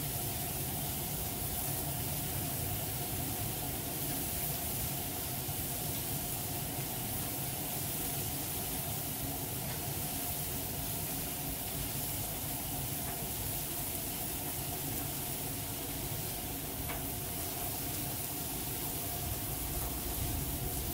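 Thinly sliced marinated ribeye sizzling steadily on a hot flat-top griddle, over a steady low hum.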